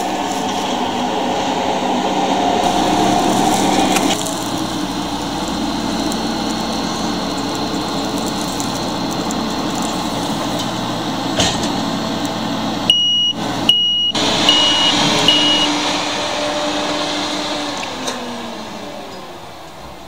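Claas combine harvesters running steadily at work, engine and threshing machinery close by. About 13 s in, four short high beeps sound in a row. Near the end the machine slows with a falling pitch and grows quieter.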